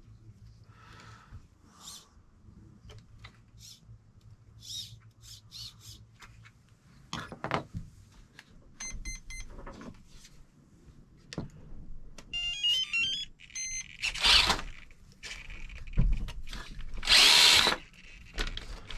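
Clicks and handling of small parts on a workbench, two short runs of stepped electronic beeps, then two brief loud whirs of a small electric motor near the end.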